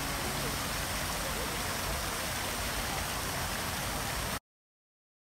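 Steady rushing splash of fountain water. It cuts off abruptly about four seconds in.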